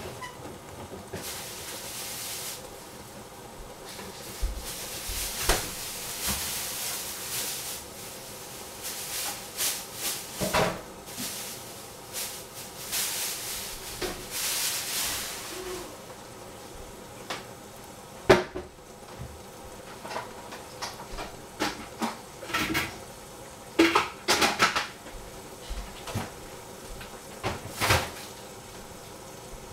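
Kitchen clatter: scattered knocks and clinks of dishes and cupboard doors being handled, the sharpest about 18 seconds in, with a few stretches of hissing between them.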